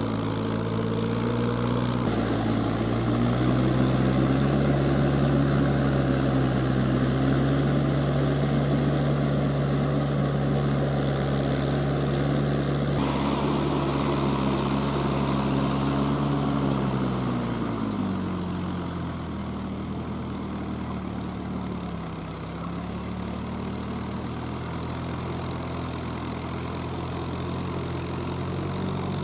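Mahindra tractor's diesel engine running steadily while puddling a flooded paddy with cage wheels. About two-thirds of the way through, the engine note drops and it runs on at lower revs.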